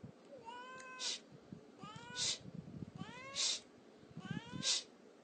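A cat meowing four times, about a second apart, each call rising in pitch and ending in a short burst of high noise.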